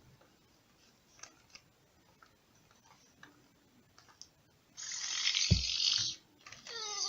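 Faint clicking, then a loud hissy burst with a thump, then a warbling voice gliding down in pitch near the end: a Furby toy's sounds from its speaker.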